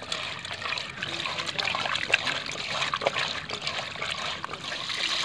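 Small fish being scrubbed by hand in water in a terracotta pot: continuous wet rubbing and light splashing, with many small clicks of the fish against one another and the pot.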